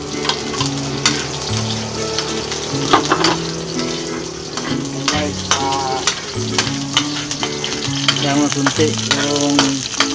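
Chopped garlic and onion tipped into hot oil in an aluminium wok, sizzling steadily while a metal ladle stirs them and scrapes the pan over and over: the sauté base of the dish starting to fry.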